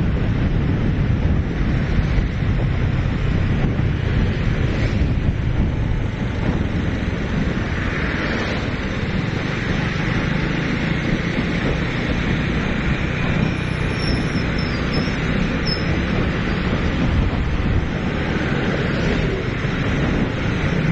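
Wind rushing over the microphone on a moving motorcycle, over a steady hum of motorbike engines and road noise.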